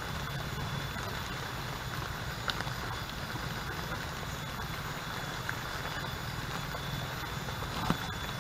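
Steady outdoor background hiss, with a couple of faint ticks and a short knock near the end.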